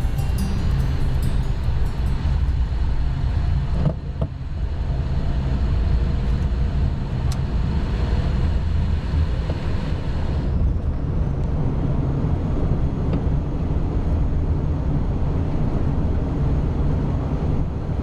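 Learjet 45XR jet noise: a steady low rumble with a rushing hiss over it, which falls away about ten seconds in.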